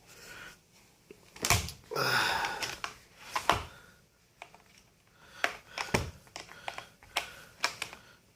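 Clicks, knocks and a scraping rustle as a laptop charger and its cable are handled and set up: about five sharp knocks spread unevenly, with a longer rustle about two seconds in.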